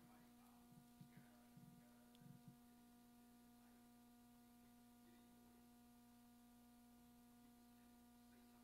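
Near silence: room tone with a steady hum, and a few faint short sounds in the first two and a half seconds.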